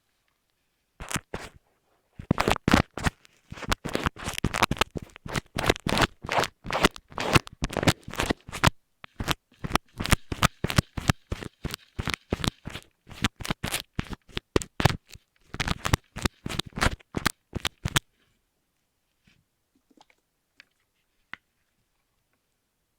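Rapid, close scratching and crunching strokes made right against an earphone microphone, ASMR-style, in quick irregular runs. They stop about eighteen seconds in, leaving only a few faint clicks.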